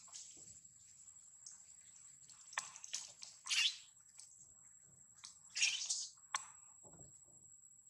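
Dry leaf litter rustling and crackling as monkeys scuffle on the ground, in short bursts with sharp snaps: once about a third of the way in and again a little after two-thirds.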